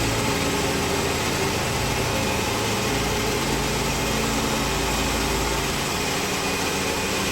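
Woodland Mills HM122 portable bandsaw mill's small gas engine running steadily while the band blade saws a slab off the cant.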